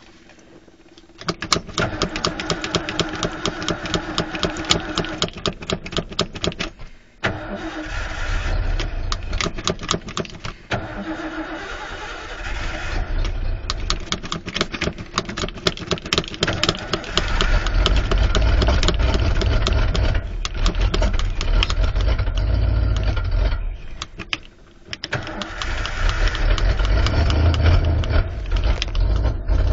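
1986 Ford F150's carbureted 302 V8 cranking on the starter with the throttle pumped, catching and running rough, then stalling about three-quarters of the way through and catching again on a fresh crank. It is a cold engine that won't stay running without the choke set.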